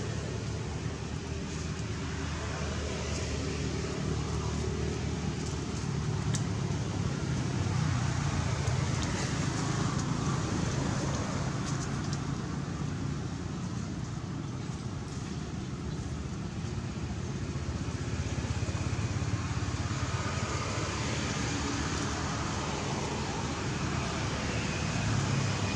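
Steady low rumble of motor traffic, running on without a break.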